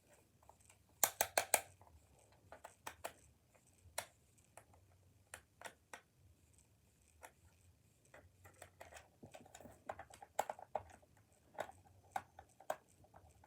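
Small screwdriver and plastic game-controller shell clicking and ticking as a stubborn screw is worked out: a quick run of four clicks about a second in, then scattered single clicks.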